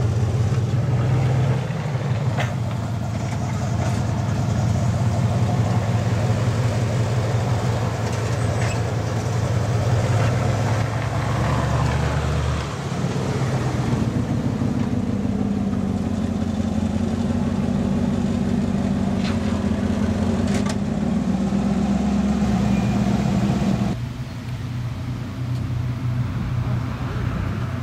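Pontiac Firebird's engine running at low revs as the car creeps along, its note shifting about halfway through. The sound drops abruptly about 24 seconds in, then a Dodge Viper's V10 engine runs as the car drives slowly up the street.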